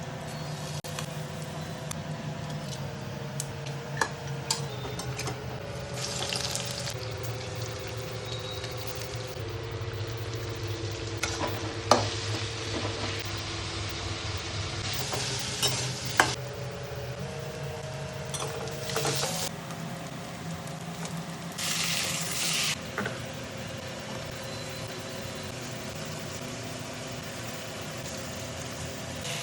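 Chicken kosha frying and sizzling in a pan while it is stirred, the hiss swelling in stretches with each stir and the spatula knocking against the pan a few times.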